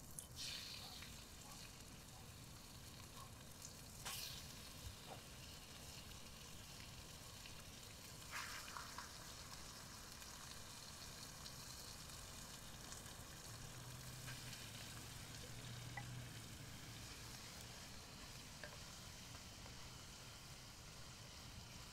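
Chicken frying in oil in a cast-iron skillet over campfire coals: a faint, steady sizzle, with a wooden spoon stirring the diced chicken and a few sharp clicks, the clearest about 4 and 8 seconds in.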